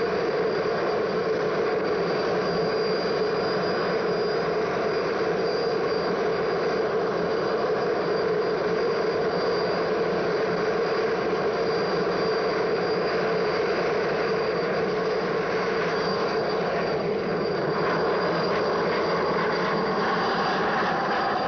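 Helicopter engine and rotor running steadily in flight, a continuous drone with a thin high whine over it.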